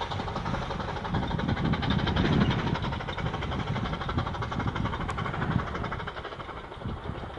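Two steam locomotives, Triassic and Liassic, working hard together as they haul a train up a gradient, their exhaust chuffing heard from afar over a steady rumble. The sound fades as the train draws away.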